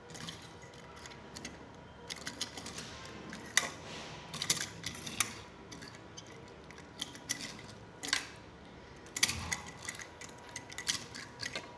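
Small die-cast metal toy cars being handled, turned and set down on a stone countertop: scattered light clicks and taps.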